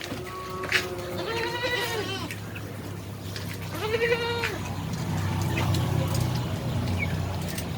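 Beetal goats bleating: two wavering bleats, about a second and a half in and again about four seconds in, with a fainter call near the start, over a low steady hum and a few faint knocks.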